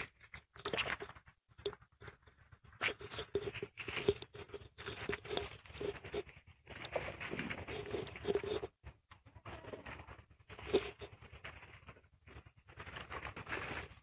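Goats browsing on a pile of leafy branches: irregular rustling, tearing and crunching as they strip leaves and twigs and chew on dry pods.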